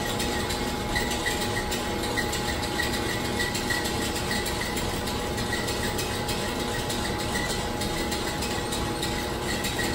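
Steady mechanical hum and hiss of running lab machinery, with faint steady tones and no distinct events.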